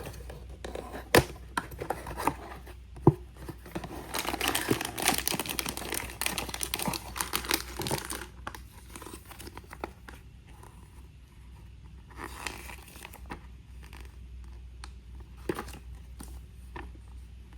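Blind-box packaging being opened by hand: a few sharp clicks, then about four seconds of dense crinkling and tearing, with a shorter burst of crinkling later and a few light taps.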